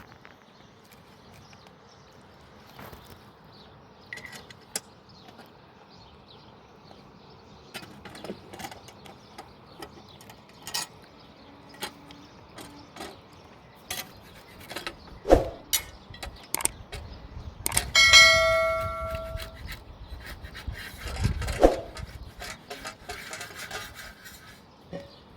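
Irregular clicks and knocks, with a couple of heavier thumps. About two-thirds of the way through comes a single ringing metallic strike, like a small bell, that dies away over a second or two.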